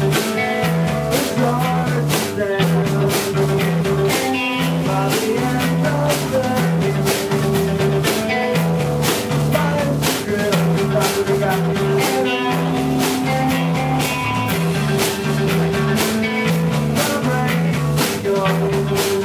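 Power-pop/post-punk trio playing live on electric bass, electric guitar and drum kit: a steady beat with cymbal hits over a repeating bass line.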